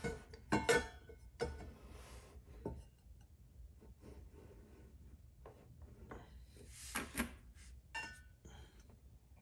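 Handling sounds as a powder-coated steel tumbler is shifted on a laser engraver's rotary roller and a bubble level is set on top: scattered knocks, clinks and rubbing, some with a brief metallic ring. The strongest come near the start and again around seven and eight seconds in.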